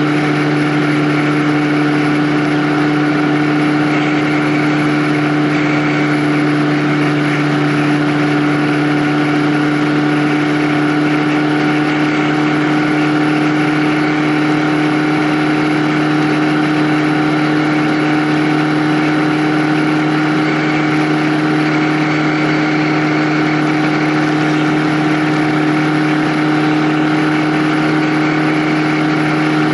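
Vehicle engine held at a steady cruising speed: a constant drone whose pitch does not change.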